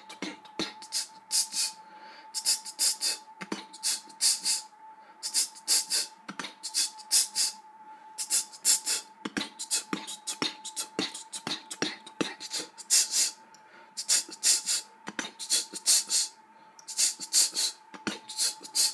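Rapid sharp clicks and short, sharp hisses in a loose, uneven rhythm, over a faint steady high whine.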